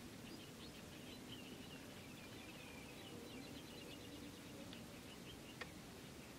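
Small birds chirping faintly in quick, high twitters over a low steady background noise, with one sharp click about five and a half seconds in.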